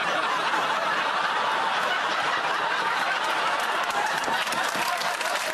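Studio audience laughing loudly and steadily after a fluffed line, with clapping joining in toward the end.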